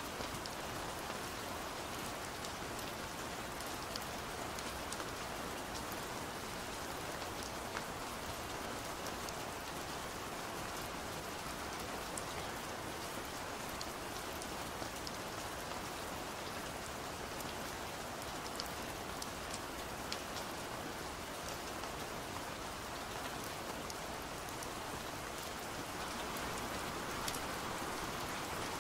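Steady rain pattering on a window pane, an even hiss with scattered sharp drop ticks.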